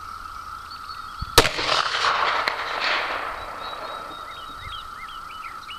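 A single .44 Magnum revolver shot from a Ruger Super Blackhawk about a second and a half in, a sharp report followed by an echo rolling on for about two seconds.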